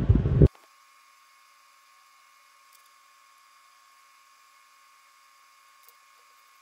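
Near silence: a faint steady hiss with a thin steady tone, and two faint ticks.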